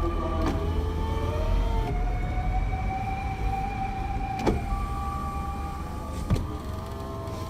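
Emergency vehicle siren wailing in slow rising and falling tones, gradually fading, over the low rumble of vehicle engines; a few short clicks.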